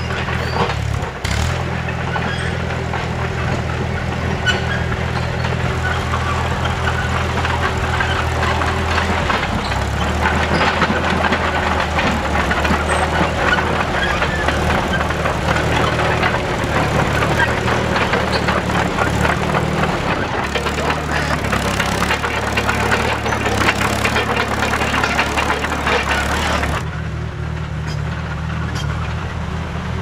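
Bristol 25 crawler dozer running steadily under load, with the rattle and clatter of its steel tracks as its angled blade pushes a pile of pine needles and soil along the track. The clatter thins out near the end while the engine keeps running.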